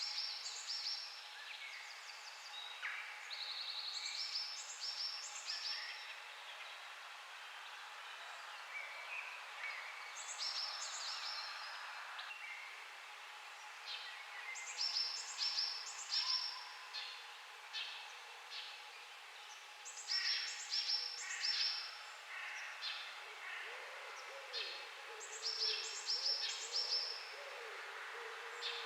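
A songbird singing outdoors at dawn, repeating a short phrase of three or four quick high notes every few seconds, over a faint steady background hum of other birds and ambience.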